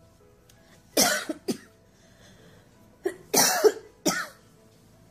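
A person coughing in short fits: a couple of coughs about a second in, then three more around three to four seconds in.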